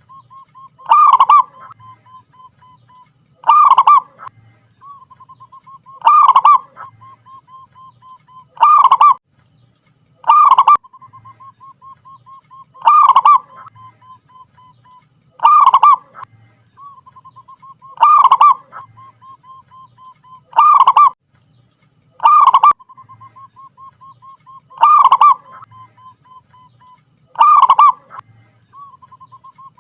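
Zebra dove (perkutut) singing: a loud coo about every two and a half seconds, about a dozen in all, each followed by a faint run of quick soft notes.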